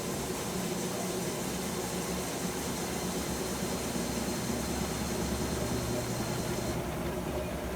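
Electrolux LF75 top-loading washing machine in its spin cycle: the motor and drum give a steady mechanical hum with a hiss. A low hum grows stronger partway through, and the hiss drops away about seven seconds in.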